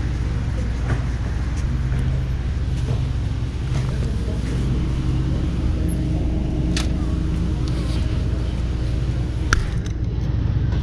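Steady low rumble and hum of a grocery store's background noise, with a couple of sharp knocks as a plastic gallon milk jug is taken from the dairy cooler and set into a shopping cart, the louder one near the end.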